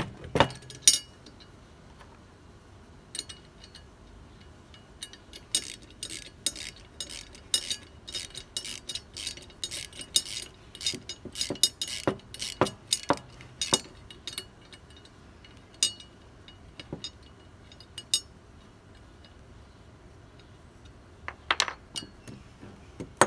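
Socket ratchet clicking in quick, irregular runs as a bolt on a metal fan-shroud tank bracket is tightened, with a few sharp metal clinks of tools near the start and near the end.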